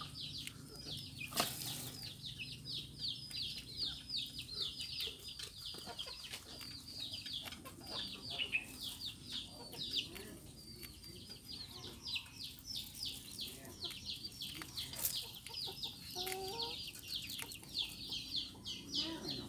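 Chicks peeping continuously in a rapid run of short, high, falling chirps, several a second. About three-quarters of the way through, a lower call, likely a hen clucking, sounds briefly.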